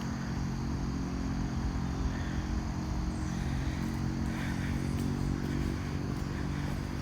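Steady low hum of a running engine over a constant rushing noise.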